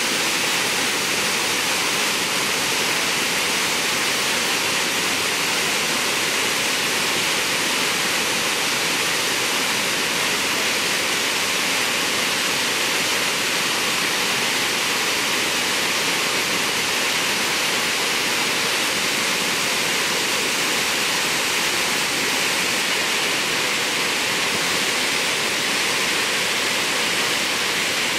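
Lúčky waterfall, a travertine cascade, rushing steadily into its pool in an even, unbroken roar of water.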